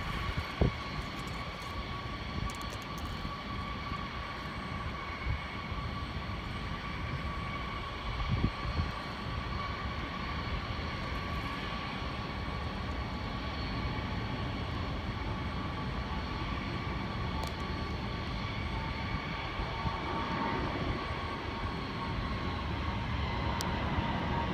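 Distant jet airliner engines running, a steady whine over a low rumble, growing a little louder near the end.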